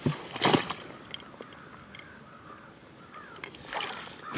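Two short splashes and rustles as a hunter in waders reaches into shallow marsh water to pick up a shot duck, followed by faint distant bird calls.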